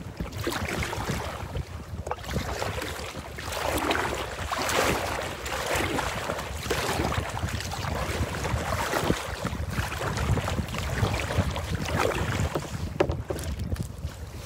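Wind buffeting the microphone in a steady low rumble, with repeated splashes and sloshing of choppy lake water against a kayak's hull.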